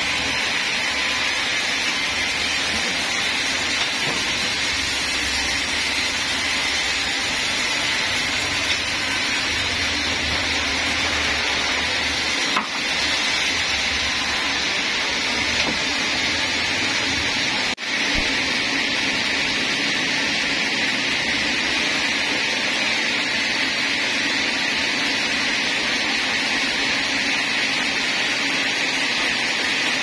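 Sawmill band saw machinery running steadily with a continuous hissing drone, broken by a sharp click about halfway through.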